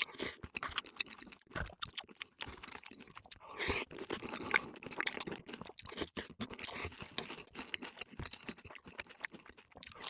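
A person eating crunchy food close to the microphone: chewing and crunching with many quick, irregular clicks, and a louder stretch of crunching about four seconds in.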